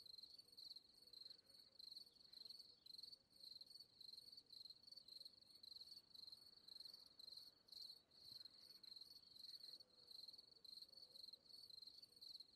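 Near silence with a faint, high, even chirping that repeats about three times a second: a cricket chirping.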